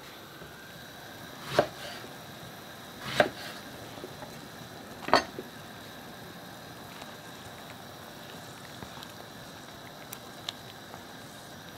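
Three single knife chops through aubergine onto a wooden chopping board, each a short sharp knock, spaced a little under two seconds apart.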